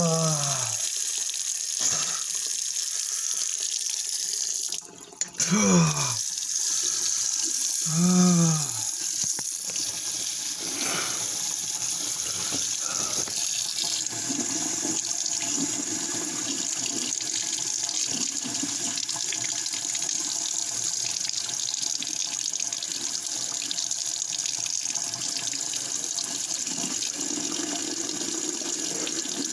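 Kitchen sink faucet running steadily, the stream splashing over a mouth held under it. A man's voice groans a few times in the first eight seconds or so, each groan short and falling in pitch.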